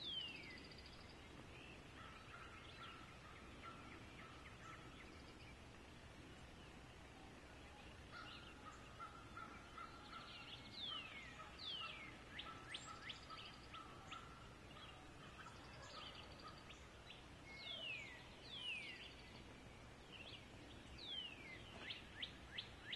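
Wild turkey gobblers gobbling, faint, in several rattling bursts, the last ones near the end, with other birds calling.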